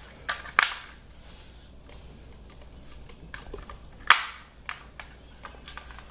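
Plastic clicks and taps as batteries are fitted into the back of an Emerson Sensi thermostat: a scatter of sharp clicks, the loudest about four seconds in.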